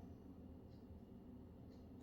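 Near silence: a faint steady low hum, with two faint short high chirps about a second apart.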